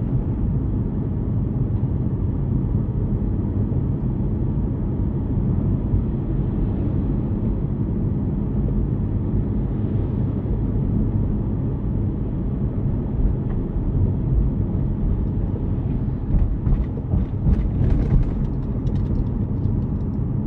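Steady low road and tyre rumble of a Hyundai Kona Hybrid driving, heard inside the cabin, with a few faint knocks near the end.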